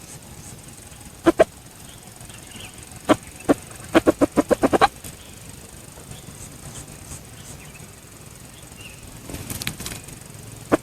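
A rooster beating its wings in sharp claps: a pair a little over a second in, two more around three seconds, then a quick run of about eight claps. Faint bird chirps sound behind.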